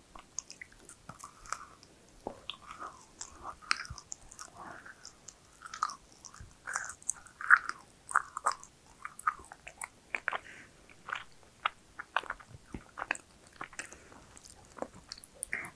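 A person chewing and biting macarons close to a clip-on lapel microphone: a run of small crisp crunches and wet mouth clicks.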